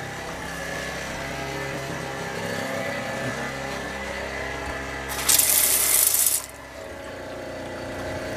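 A steady motor hum, and about five seconds in a loud rush of water from the kitchen faucet that lasts about a second and then cuts off.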